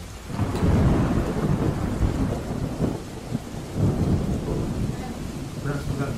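A long rumble of thunder that builds about half a second in and slowly dies away over several seconds, over steady rain.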